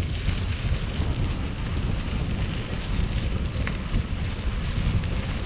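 Wind buffeting the microphone of a moving bicycle rider, over a steady low rumble.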